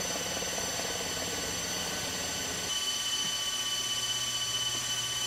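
Steady machinery whine: several high, steady tones over a low hum and a hiss, with the balance shifting about two and a half seconds in.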